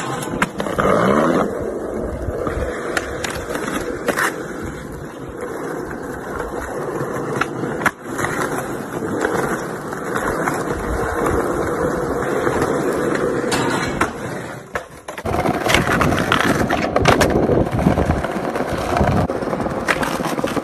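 Skateboard wheels rolling on concrete and asphalt, broken by sharp pops, board clacks and landings. Near the start the trucks grind down a metal handrail.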